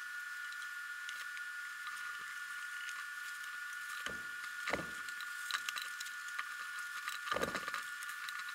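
Hands handling a wool felt hat and its braided hat band: soft scratchy rustles as the band is pulled around the crown, loudest about four seconds in and again near the end. A steady faint high-pitched tone sits underneath.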